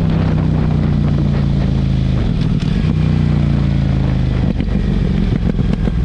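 CFMOTO 800MT parallel-twin engine running through a LeoVince aftermarket exhaust, holding a steady note. The note breaks briefly about two seconds in, returns, then turns rougher and less even about four and a half seconds in.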